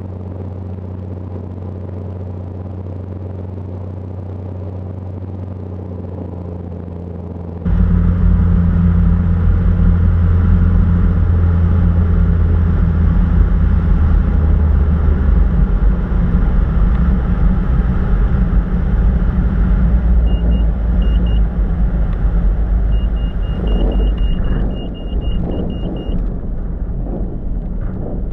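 Light aircraft's piston engine and propeller droning steadily in the cabin, jumping suddenly louder about eight seconds in. Later, strings of short high beeps from a cockpit warning beeper sound several times, and a few bumps come near the end as the plane settles onto a grass strip.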